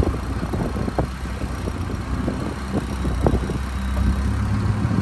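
Engine of a wooden longtail boat running steadily under way, a low drone with wind and water noise rushing past.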